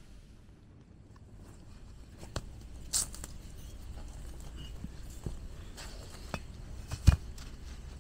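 Scattered light knocks and clicks of handling or movement over a low steady background, ending in one heavier thump about seven seconds in.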